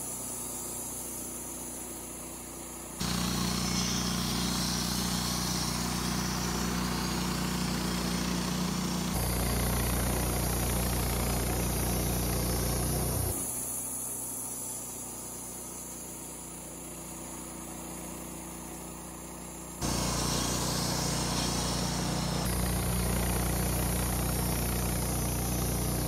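Wood-Mizer LT15 band sawmill running, its band blade sawing through an incense cedar log. The sound is steady within each stretch but jumps abruptly in level a few times, louder from about three seconds in, softer through the middle, and louder again from about two-thirds of the way through.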